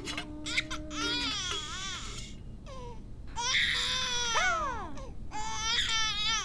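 A baby crying: a run of high-pitched wails, several of them falling in pitch, with short breaks for breath between them.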